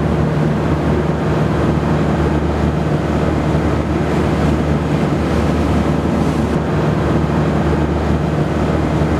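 Fishing boat's engine running at a steady, even pitch, with wind on the microphone and the rush of water.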